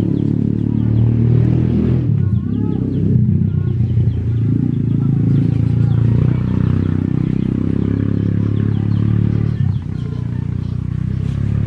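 A loud, steady low drone made of several even tones, like a motor running, with a slight drop near the end. Faint voice-like sounds run over it.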